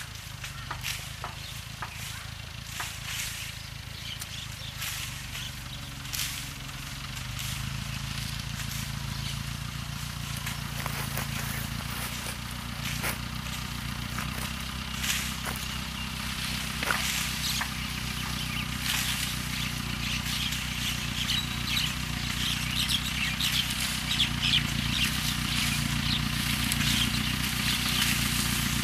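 Small farm tractor engine running as the tractor drives closer, growing steadily louder, with scattered sharp crackles and snaps that come thicker near the end.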